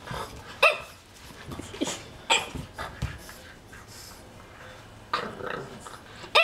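French bulldog puppy barking at a magazine in a string of short, sharp barks, with a pause of about two seconds in the middle. It is the wary, alarmed barking of a puppy afraid of an unfamiliar object.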